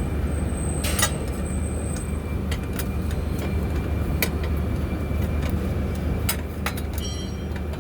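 Scattered sharp metal clicks and taps of hand tools on the bus's clutch linkage while a threaded rod is adjusted, the loudest about a second in and a short ringing clink near the end, over a steady low hum.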